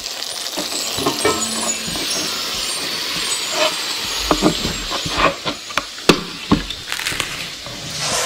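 A steady hiss with many sharp clicks, knocks and clinks scattered through it.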